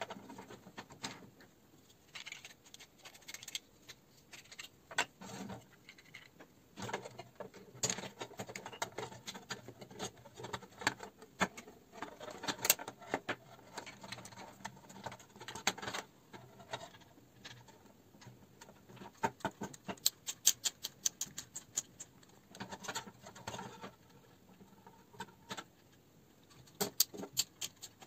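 3D-printed plastic parts clicking and knocking together as they are handled and fitted, in irregular taps with a couple of quick rattling runs of clicks, one about two-thirds of the way in and one near the end.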